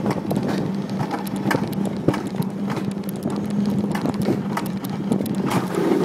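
Alpine coaster sled running fast along its steel tube track: a steady rolling hum from the wheels with frequent sharp clacks and rattles.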